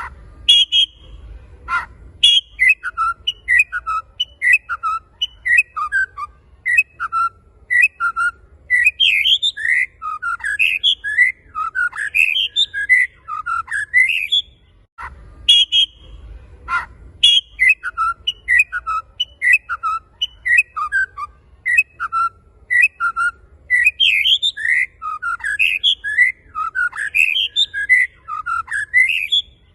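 White-rumped shama (murai batu) song: a fast, loud run of rising and falling whistled notes. There is a brief break with a click about halfway, after which the same sequence of phrases starts again, as in a looped lure recording used to provoke caged shamas into singing.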